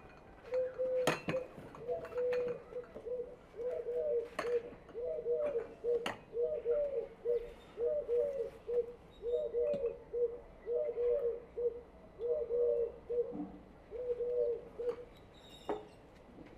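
A dove cooing: a long run of short, low coos repeated in quick phrases, stopping near the end, with a few sharp clicks in between.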